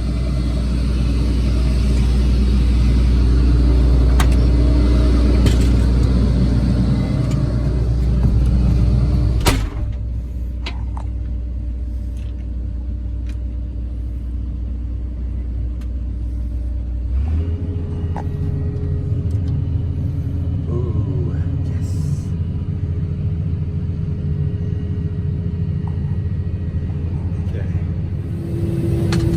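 Combine harvester engine and machinery running steadily with a strong low hum. About nine seconds in a sharp click comes, and after it the sound is quieter and more muffled. The engine tone changes again a little past halfway.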